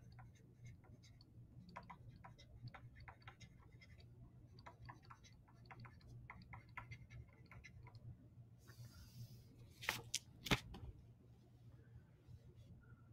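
Stylus writing on a tablet: faint, quick, light ticks and taps of the pen tip as words are handwritten, then two louder clicks about ten seconds in, over a low steady hum.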